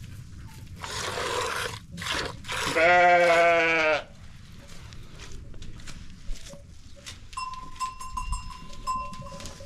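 A goat bleating once, loudly, a wavering call of just over a second about three seconds in. Two short hissing bursts come before it.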